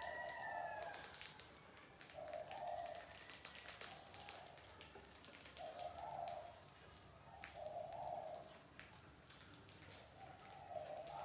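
A dove cooing in short low calls, about one every two seconds, with faint scattered ticks and scratches between them.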